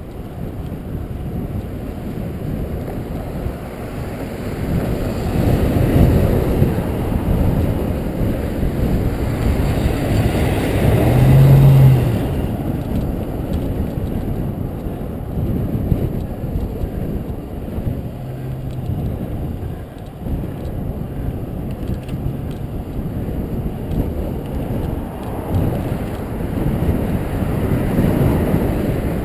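Wind rushing over the microphone of a road bike descending at speed. A motor vehicle's low engine hum swells and is loudest about eleven seconds in.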